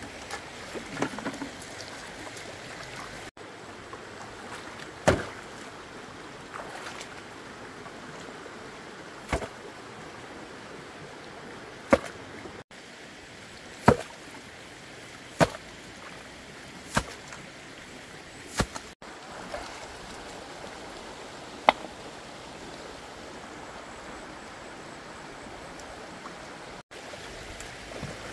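Sharp knocks, about eight at irregular intervals of one to three seconds, over a steady rush like running water.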